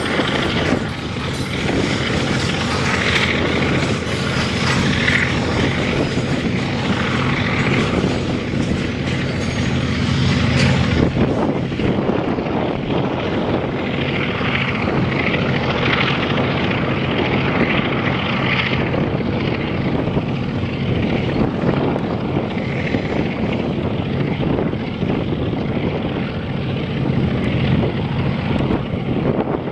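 Diesel locomotive hauling tank cars, its engine making a steady low drone that shifts slightly about eleven seconds in, with a rushing noise over it.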